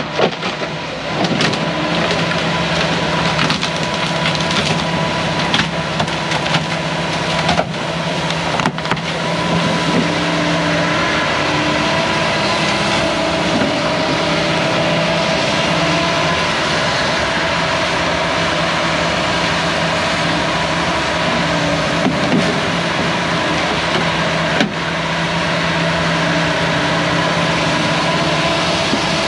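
Hyundai excavator's diesel engine running steadily as it works the old dock, with several sharp knocks in the first ten seconds and one more later on.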